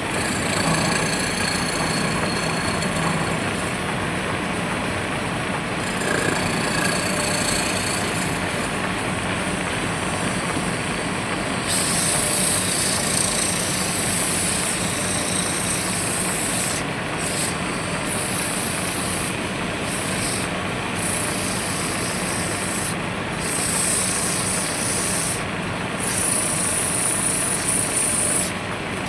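Bandsaw mill running steadily as it cuts through timber. A high hiss comes in stronger about a third of the way through and drops out briefly several times.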